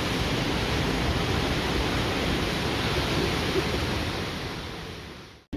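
A steady rushing roar of noise with faint voices beneath it, fading out near the end.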